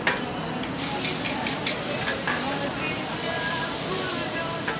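Food sizzling and frying in a large steaming wok, growing louder about a second in, with a metal ladle clinking and scraping against the pan several times. Market voices murmur underneath.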